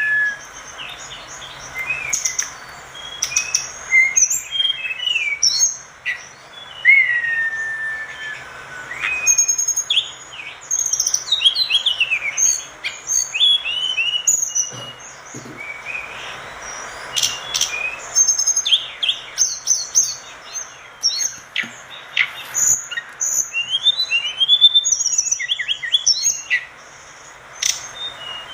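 A tledekan gunung songbird in full song: a fast, varied run of chirps, trills and gliding high whistles, with long drawn whistles in the first few seconds, over a steady hiss.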